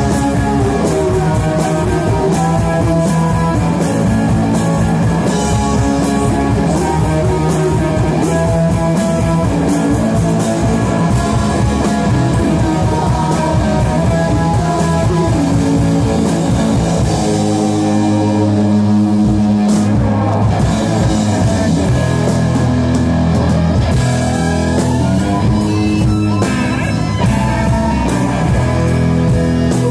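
A live rock band playing electric guitars, bass and drum kit. Past the middle the drums and cymbals drop out for a couple of seconds, leaving held guitar and bass notes, then come back in.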